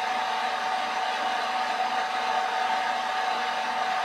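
Electric fan running steadily: an even rushing noise with a constant mid-pitched hum.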